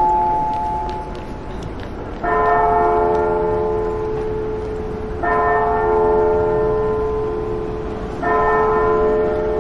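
Church bell tolling: three strokes about three seconds apart, each ringing on with several tones until the next stroke. Near the start, the ring of an earlier stroke dies away.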